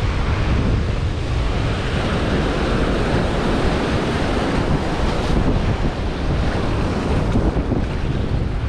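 Surf washing and churning over a rocky shoreline shelf, a steady rush of water, with wind rumbling on the microphone.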